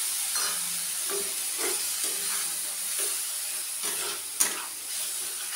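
Vegetables in sauce sizzling in a nonstick kadai, with a flat spatula stirring and scraping through the pan in short strokes about twice a second. One sharper knock of the spatula against the pan about four and a half seconds in.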